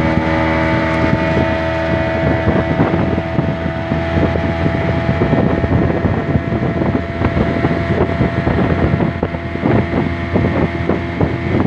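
Outboard motor of a small wooden river boat running steadily at speed, holding one pitch, with wind buffeting the microphone.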